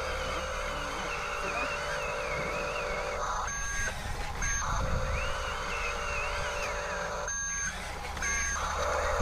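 Small electric motors and gearboxes of radio-controlled toy construction vehicles whining in steady stretches, stopping briefly twice and starting again.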